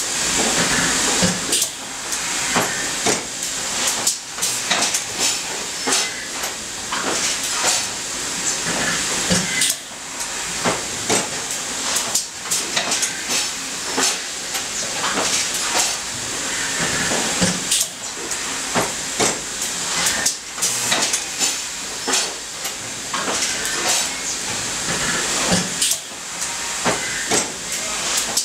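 Automated plastics processing machine running through its cycle: a steady hiss of air over repeated clanks and knocks, with a heavier thump about every eight seconds.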